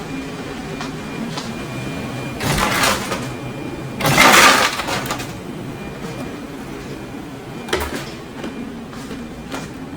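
Ice clattering into a container in two short pours over a steady low hum, followed by a single click.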